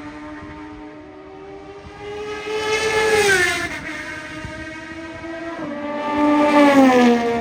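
CFMoto 675SR-R's three-cylinder engine through an Austin Racing full exhaust system, on track. The revs climb and the note grows louder, then drop about three and a half seconds in; the same rise and fall comes again near the end.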